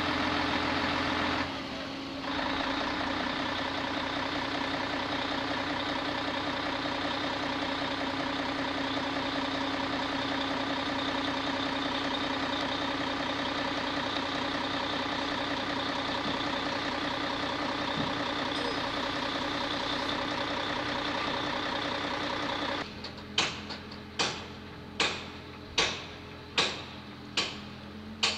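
An engine running steadily, cutting out about 23 seconds in; then a series of sharp knocks, about three every two seconds.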